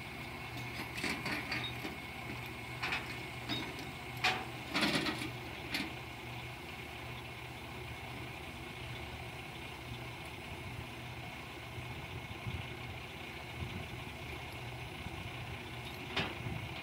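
Rollback tilt-bed truck's engine idling steadily, with a few short knocks in the first six seconds and another near the end.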